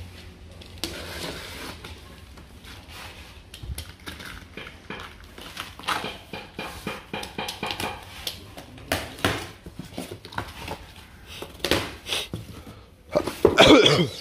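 A cardboard parcel and its packing being handled and torn open: irregular scraping, rustling and knocking, with a loud brief cry near the end.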